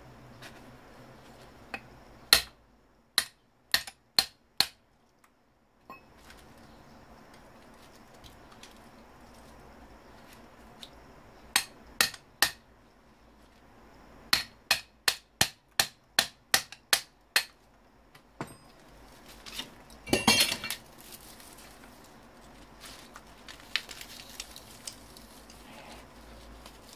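Hammer blows on metal, knocking at a stuck part of a scrapped computer monitor: scattered sharp clinks, then a run of about ten quick strikes at roughly three a second, and a brief rattling clatter about twenty seconds in.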